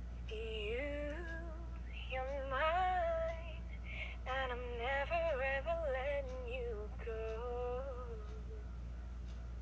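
A girl's high voice singing three short phrases, sliding and wavering in pitch, with brief pauses between them, over a steady low hum.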